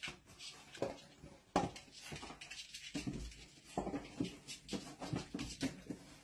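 A dog making small sounds amid irregular light clicks and knocks.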